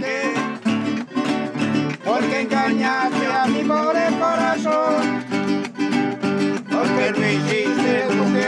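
Acoustic guitars and other plucked strings playing together, strummed and picked, in a Colombian campesino string-band tune.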